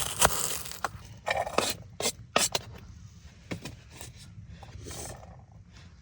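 Scraping and rustling from objects being handled, broken by several sharp knocks, the loudest right at the start and others about one and a half, two and two and a half seconds in.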